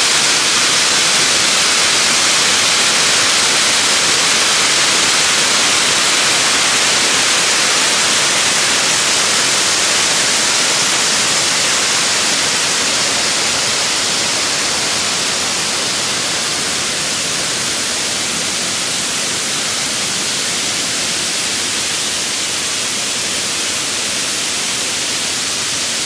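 Boonton Falls pouring over its concrete dam spillway, with the river rushing among the rocks below: a loud, steady rush of falling water.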